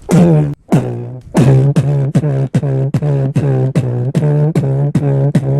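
A man imitating a bass drum with his voice, beatbox-style: a run of deep kick sounds, each dropping in pitch, a few spaced out at first and then settling into a steady beat of about three a second.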